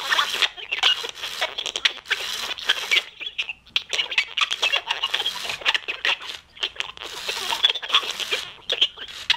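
Broken animated singing and dancing Santa figure sputtering out a steady stream of irregular crackles and clicks instead of its song.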